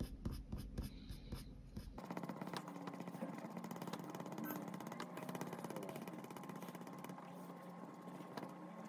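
Tombow Mono Zero pen eraser rubbed in quick short strokes over charcoal paper, about four strokes a second, to lift highlights. About two seconds in the sound changes abruptly to a faint steady hum with fine rapid ticking.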